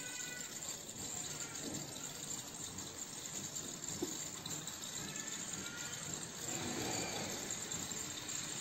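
Gas-and-oxygen burner flames of an ampoule sealing machine burning with a steady, high jet hiss, the sound used to judge the flame setting. The hiss grows a little louder about six and a half seconds in.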